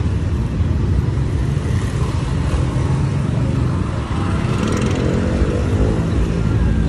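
Street traffic, motorbike and car engines running and passing as a steady low rumble, with one engine rising in pitch about five seconds in.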